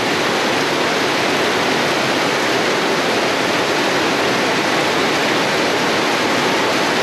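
Heavy rain falling steadily on trees, leaves and floodwater, a dense even hiss with no let-up.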